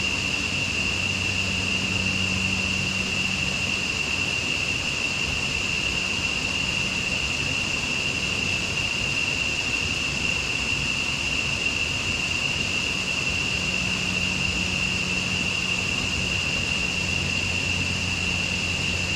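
Steady outdoor ambience at a jungle river pool: an even hiss of moving water under a continuous high-pitched drone, with a faint low hum fading in and out.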